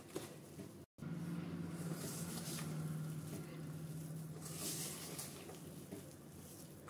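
A hand squeezing and tossing shredded cabbage, carrot and onion with flour in a steel bowl: soft rustling and squishing. A low steady hum runs under it for a few seconds after a brief dropout about a second in.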